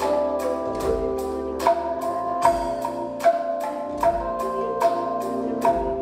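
Calung renteng, the Sundanese bamboo-tube idiophone, struck with a mallet in a steady pattern of about two to three ringing, pitched strokes a second, over sustained held notes and bass from the band.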